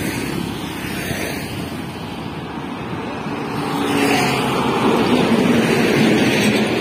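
Highway traffic: heavy trucks approaching and passing close, engine and tyre noise growing louder from about four seconds in.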